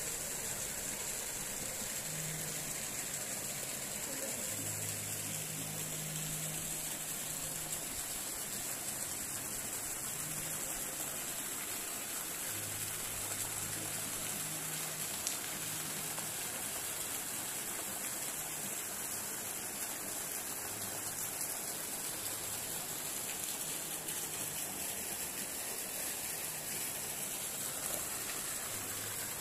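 Steady rushing hiss of water from a koi pond's fountain jets.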